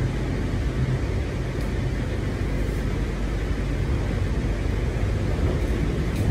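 Steady low rumble of a suburban electric train carriage running along the track, heard from inside the passenger saloon, with a few faint clicks.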